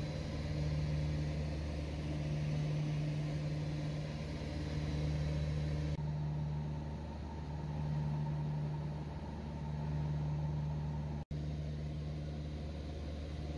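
Single-engine light aircraft's piston engine and propeller, a steady cruise drone heard inside the cockpit. The sound shifts slightly about halfway through and drops out for an instant about 11 seconds in.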